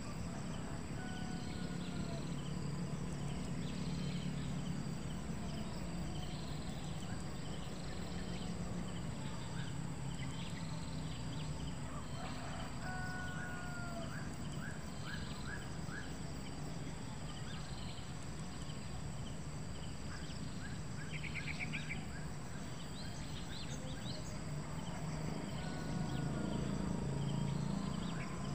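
Rural outdoor ambience: insects buzzing steadily under a low, steady rumble. Small birds chirp here and there, including a quick run of chirps about halfway through and a short trill a little later.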